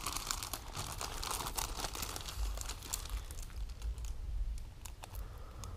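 Clear plastic kit bags crinkling as they are handled, a run of small crackles that thins out toward the end.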